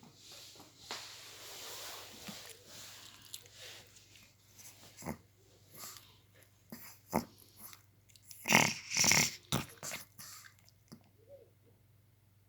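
Pomeranian puppy yawning: a long breathy exhale, then sharp mouth clicks and smacks, with two louder breathy bursts about two-thirds of the way through.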